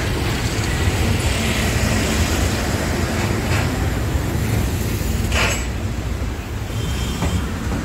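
Steady road traffic noise from cars and auto-rickshaws on a busy city road: a continuous low rumble, with a few short sharp sounds about three and a half, five and seven seconds in.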